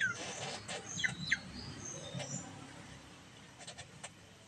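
Small birds chirping in short, high calls, busiest in the first couple of seconds, then a few sharp clicks near the end.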